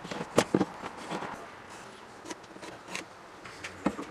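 Light knocks and scrapes of pine blocks and a metal combination square being handled and set down on a wooden workbench, a few separate taps, the sharpest about half a second in.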